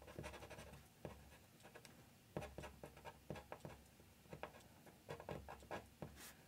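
Faint, irregular scratching and tapping of a pen tip on paper as short ink strokes are drawn.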